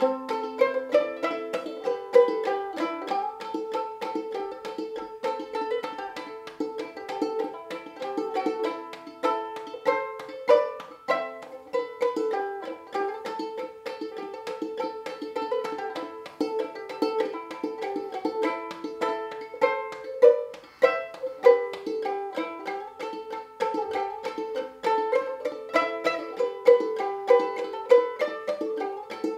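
A Gold Tone banjo ukulele played solo in clawhammer style: a fiddle tune in A minor in a quick, steady stream of bright plucked notes with a crisp banjo-like attack, the strings in reentrant aCEA tuning.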